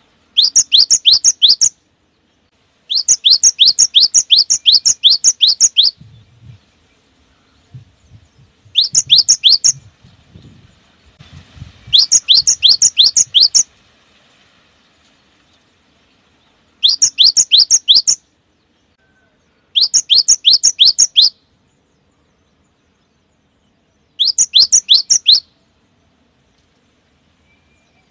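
Cinereous tit singing seven bursts of rapid, repeated high whistled notes, each note sweeping downward, with short silences between the phrases.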